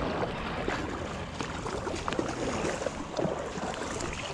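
Shallow river running steadily, with wind on the microphone and a few light clicks.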